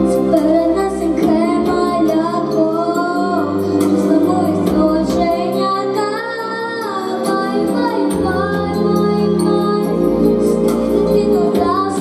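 A young girl of about six or seven singing a lullaby into a microphone over instrumental accompaniment, her voice holding and gliding between long notes.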